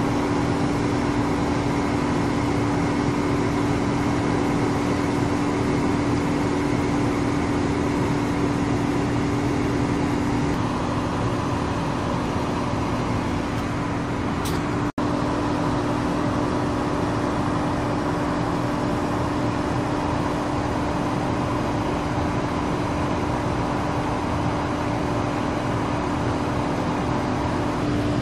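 Steady vehicle running noise: a continuous rush of road and engine sound with a constant low hum. It cuts out for an instant about halfway through.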